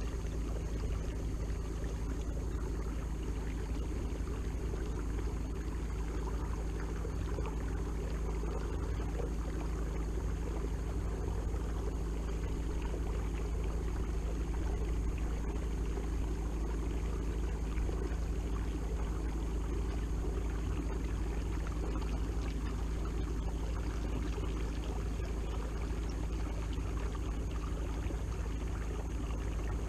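Watersnake T24 electric trolling motor running at a constant speed, a steady hum with a thin high whine, over water rushing along the kayak's hull.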